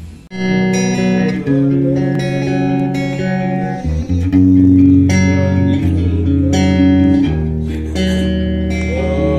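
Guitar music with deep held bass notes and chords, starting abruptly a fraction of a second in.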